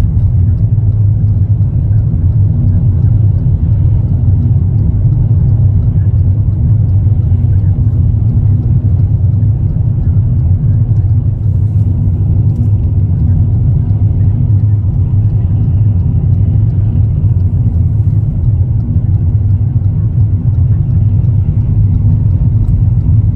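Steady low rumble of road and engine noise inside a car's cabin while driving at highway speed.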